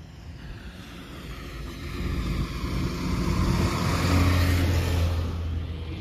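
A motor vehicle passes close by. Its engine hum and the rush of its passing build over a couple of seconds, are loudest about four seconds in, then ease off.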